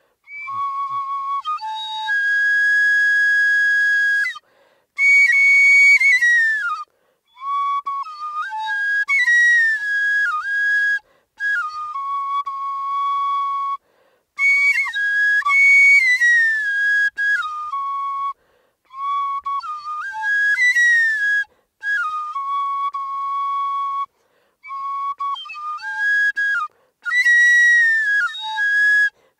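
Solo short bamboo flute playing a high melody in phrases broken by short breath pauses every few seconds, many notes sliding or bending between pitches.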